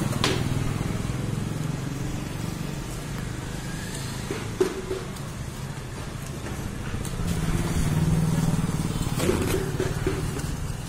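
Street traffic: a motor vehicle engine running with a steady low hum that swells louder about two-thirds of the way through, with a few light clicks.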